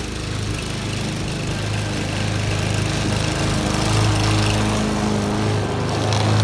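Walk-behind gas lawn mower running steadily, growing louder as it is pushed up close and past.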